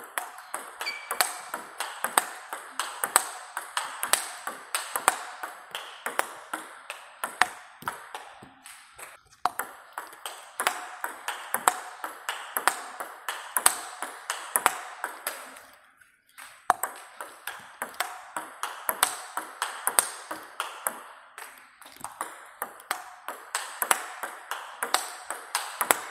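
Table tennis rally: the celluloid-type plastic ball clicking off rubber-faced paddles and bouncing on the table in a quick, steady patter, a topspin-against-block drill with the blocker's bat faced in Young Shine Blue rubber. Two brief breaks in the rally, about a third and two-thirds of the way through.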